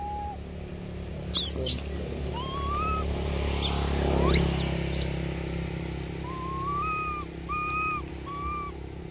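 Infant long-tailed macaque giving short, high-pitched whimpering calls, with a few sharp sweeping squeals in the first half and a run of four short calls in quick succession about seven seconds in.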